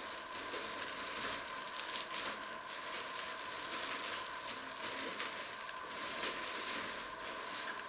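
Clear plastic packaging rustling and crinkling as it is handled and pulled off during unpacking.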